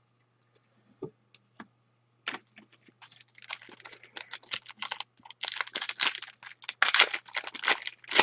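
Hockey trading cards being handled and flipped through, with crinkling and clicking of card and packaging. A few single clicks come first, then a dense, irregular run of them from about two seconds in.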